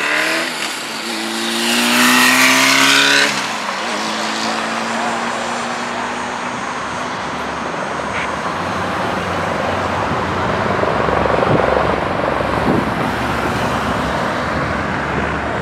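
Search-and-rescue helicopter, a CH-146 Griffon, flying low overhead with steady rotor and turbine noise. In the first three seconds a louder engine sound rises slightly in pitch and then cuts off.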